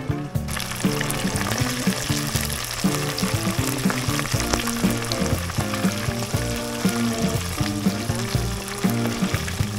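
Frozen wrapped shrimp deep-frying in hot oil in a pot, a steady busy sizzle and crackle that starts about half a second in, over background music.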